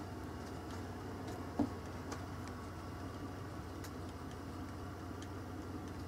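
Faint, irregular ticks over a steady low hum, with one soft knock about a second and a half in.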